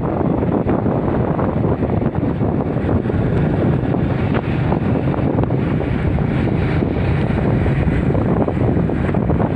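Steady wind buffeting the microphone.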